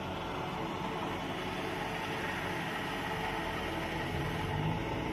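Safari jeep engine running steadily.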